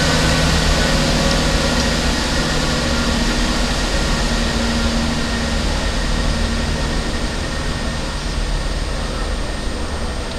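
Class 166 Networker Turbo diesel multiple unit pulling away and moving off, its underfloor diesel engines running with a steady drone that slowly fades as it draws away.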